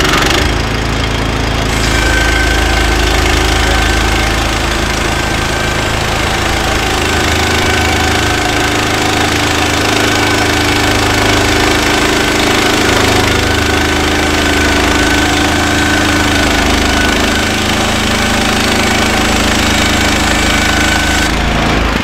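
Woodland Mills HM126 portable bandsaw mill running under power, its gas engine driving the band blade through a cant as the saw head is pushed along the log. A steady engine drone with a thin, high whine over it.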